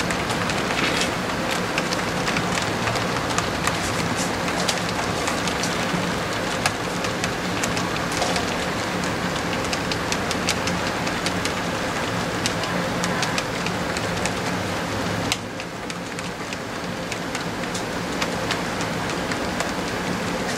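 HO-scale model train cars rolling past on the track: a steady rattling rush of metal wheels with many small clicks over the rail joints and a low hum, a little quieter about three-quarters of the way through.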